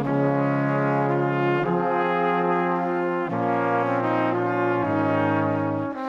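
Background music with held chords that change about every second and a half.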